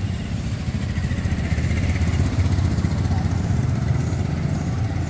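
Motor vehicle engine running with a steady low rumble, a little louder in the middle.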